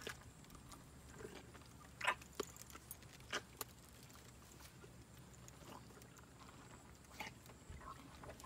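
A few light metallic clinks and clicks from a bridle's bit and hardware as it is fitted onto a horse's head, the loudest about two seconds in.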